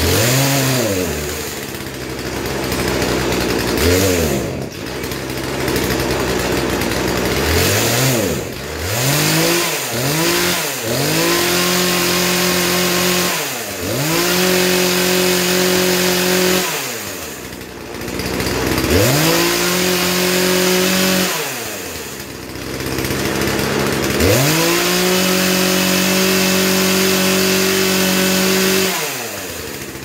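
Poulan Pro PP4218 two-stroke chainsaw running and being revved after its carburetor's mixture screws were opened up richer. It takes several quick throttle blips over the first ten seconds, then four full-throttle runs of about two to five seconds each, dropping back to idle between them.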